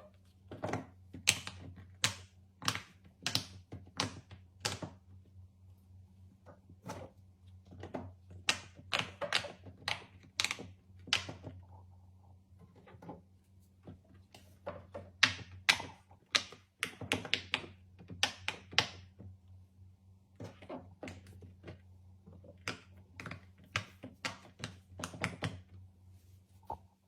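Fidget toys being handled, giving quick sharp clicks and taps in irregular flurries with short pauses between them. A steady low hum runs underneath.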